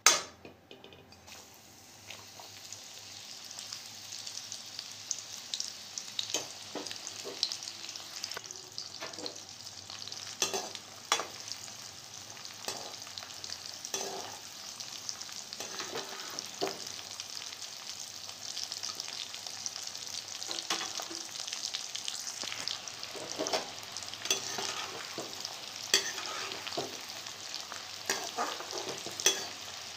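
Spiced, besan-coated peas sizzling as they deep-fry in hot oil in a kadai, with a perforated spatula scraping and knocking against the pan as they are stirred. A sharp knock at the very start, then the sizzle builds over the first couple of seconds and holds steady, broken by frequent small scrapes and clicks.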